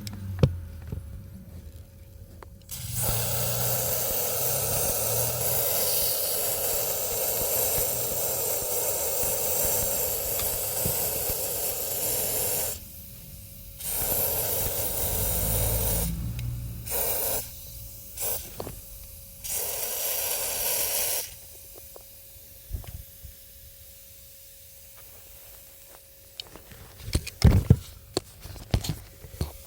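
Pressurised spray hissing in long bursts during A/C evaporator cleaning, first for about ten seconds, then for about seven, with a few short squirts between. Near the end come a few light knocks.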